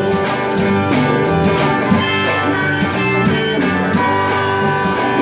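Live rock band playing an instrumental passage between vocal lines: electric guitars over drums, with a steady beat.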